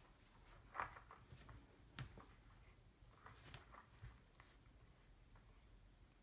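Faint scattered clicks, taps and rustles as a cat paws and mouths a plastic Easter egg in a sink basin, the sharpest tap about two seconds in; it goes quieter for the last second or two.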